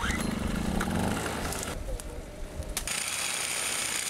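Small Colt portable generator being pull-started and running. About three seconds in, an electric drill starts with a steady high whine, boring into a black rhino's horn.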